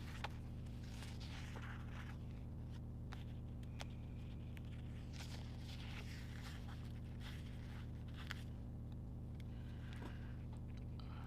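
Sticker sheets and planner pages being handled: soft rustling and scraping with scattered small ticks, over a steady low hum.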